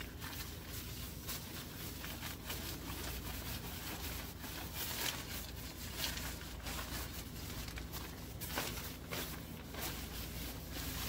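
Shelter fabric rustling and swishing as a side panel of the canopy is rolled up tightly by hand, in uneven surges that are loudest about five, six and eight and a half seconds in, over a low steady rumble.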